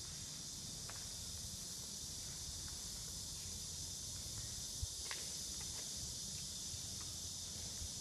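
Quiet, steady high-pitched hiss over a low rumble of background ambience in a large workshop hall, with a few faint clicks and taps scattered through it, the sharpest a little past halfway.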